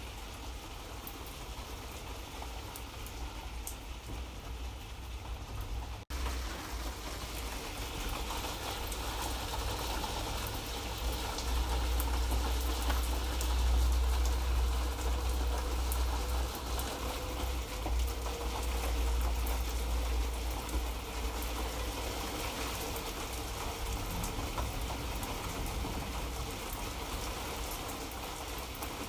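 Light rain falling steadily, with fine pattering drops over a low rumble. The sound cuts out for an instant about six seconds in and comes back a little fuller.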